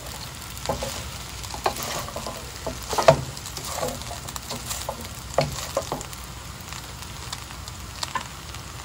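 Fried rice with shrimp and bacon sizzling in a nonstick frying pan while a wooden spatula scrapes and tosses it, in short strokes. The stirring thins out after about six seconds, leaving mostly the steady sizzle.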